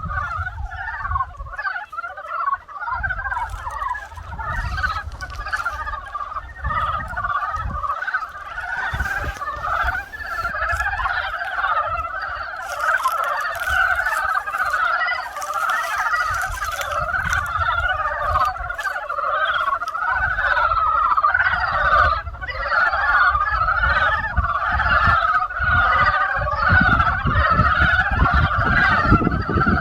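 A dense spring chorus of many frogs calling at once, overlapping without a break. A low rumble comes and goes underneath.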